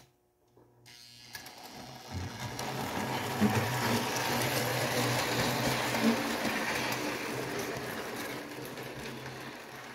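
A 1937 Lionel 238E Pennsylvania Railroad Torpedo model locomotive pulling away and running on three-rail track, its electric motor and gears whirring steadily. The sound starts about a second in, grows louder as the train comes past, and eases slightly near the end.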